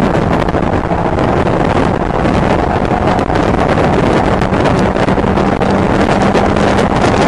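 Mazda MX-5 race car's four-cylinder engine running at steady revs, heard from inside the cabin over heavy wind and road noise.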